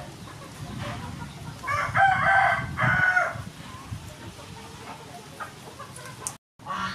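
A rooster crowing once, about two seconds in, for about a second and a half. The sound drops out briefly near the end.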